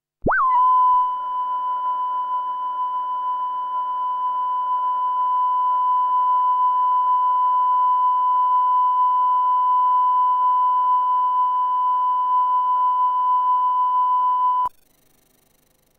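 Test tone for level line-up: one steady, loud beep at about 1 kHz that starts abruptly and cuts off suddenly about a second before the end. It is the reference tone that runs with colour bars at the head of a video tape.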